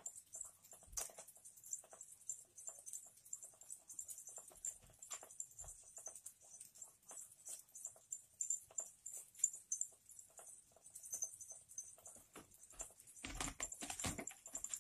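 A kitten pawing at a round cardboard scratcher toy with balls in its rim track: irregular light clicks and taps. A louder cluster of knocks and scuffling comes near the end.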